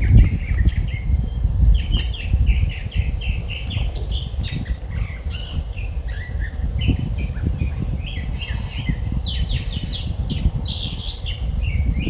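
Birds chirping in quick short notes, over a low rumble of wind on the microphone.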